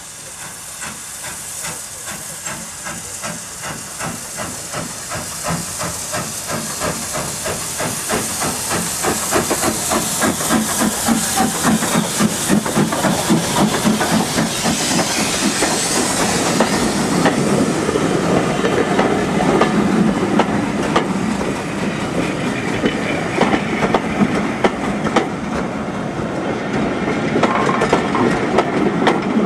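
LMS Fowler 3F 'Jinty' 0-6-0 tank engine working a train away, its steam exhaust beats quickening and growing louder as it nears, with a steady hiss of steam. From about halfway through, the coaches roll past with a rhythmic clatter of wheels over the rail joints.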